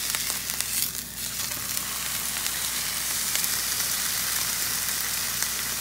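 Marinated pork tenderloin searing in a hot nonstick frying pan: a steady, hissing sizzle, with a few small clicks in the first second.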